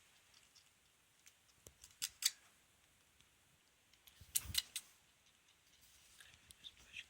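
A run of short, sharp sneezes, some in quick pairs, the loudest cluster about four and a half seconds in.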